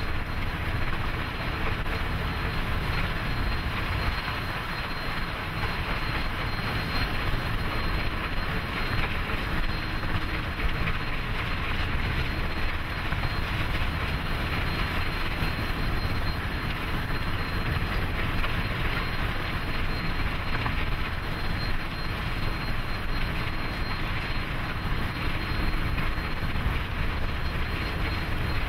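Union Pacific 844, a 4-8-4 Northern steam locomotive, running past at speed: a steady, even rushing noise of exhaust and running gear, without separate exhaust beats.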